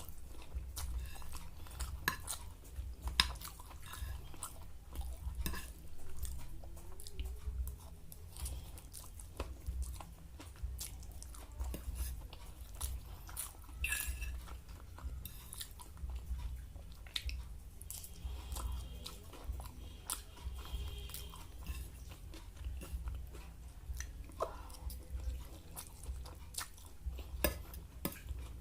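A person chewing and crunching food, with many short sharp clicks throughout.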